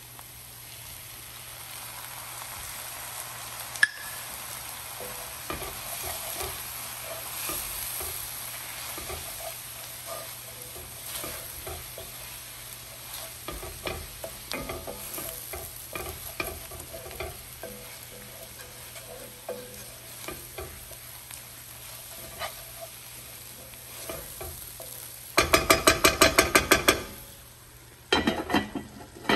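Chopped onions and tomatoes sizzling in oil in a frying pan, stirred and scraped with a wooden spoon. Near the end, a cloth is rubbed fast over a glass pan lid: a loud run of strokes, about eight a second.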